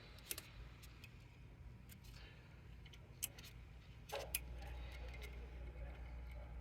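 Scattered faint clicks and taps of hands handling flat ribbon cables and their connectors inside a printer, with a low hum that grows louder about four seconds in.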